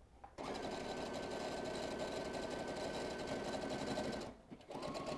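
Brother ST150HDH sewing machine stitching a seam through knit T-shirt fabric. It runs steadily for about four seconds, stops briefly, then starts again near the end with a rising whine as the motor speeds up.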